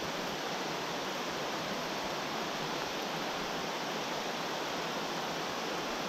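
Heavy rain falling steadily on trees and undergrowth, an even, unbroken hiss.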